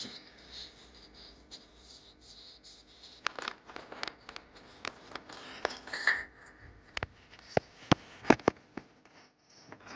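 Small hard parts being handled by hand: light rustling, then a scattered run of sharp clicks and taps starting a few seconds in, the loudest a second or two before the end.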